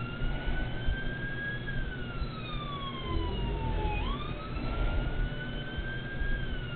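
Emergency-vehicle siren wailing. Its pitch climbs slowly, sinks, then sweeps back up about four seconds in and climbs again, over a low background rumble.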